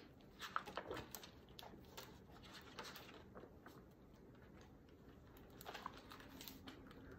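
Faint rustling and soft taps of a hardcover picture book's paper pages being turned and handled, a few in the first second and again about six seconds in.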